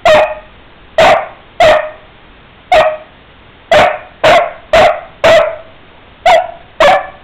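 Young basset hound barking: about ten short, sharp, fairly high barks in uneven runs with brief gaps between them. Demand barking, which the owner takes to be for a Cheez-It treat she won't give him.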